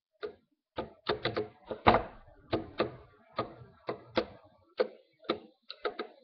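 Irregular plastic clicks and taps, about two a second, from a rubber-band loom's pegs being worked with the hook and the loom being handled.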